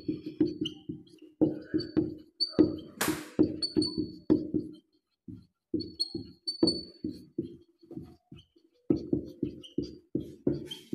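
Marker squeaking on a whiteboard while writing: a quick run of short squeaks, one for each pen stroke, with pauses between words and a brief sharp rasp about three seconds in.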